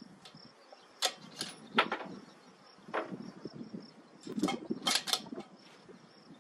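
Insects in grassland making a thin, steady high buzz that breaks on and off, with about half a dozen sharp clicks or ticks, the loudest about two seconds in.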